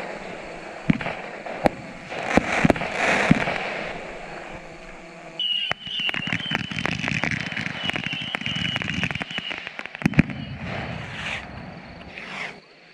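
Pyrotechnic bangs and cracks of a night battle: scattered sharp reports, then a dense run of rapid cracks from about five and a half seconds to ten seconds. A steady high-pitched tone runs under the rapid cracks.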